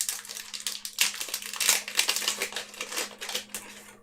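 Yu-Gi-Oh booster pack's foil wrapper being torn open and crinkled by hand, a dense run of rapid crackles that dies away near the end.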